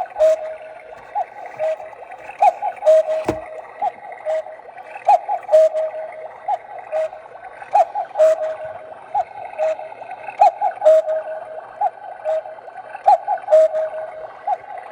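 Battery-powered quartz cuckoo clock sounding its electronic cuckoo call over and over, a short higher note followed by a lower one, with sharp mechanical clicks alongside. It is striking the hour after the minute hand has been set to 12. A single dull thump comes about three seconds in.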